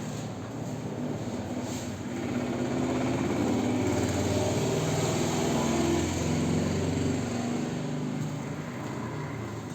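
An engine running, growing louder about two and a half seconds in and easing off again after about seven seconds.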